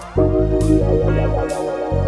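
A live band plays a slow groove between sung lines: a deep held bass line, held chords and a drum kit with bright cymbal strikes a few times. The bass drops out briefly near the end.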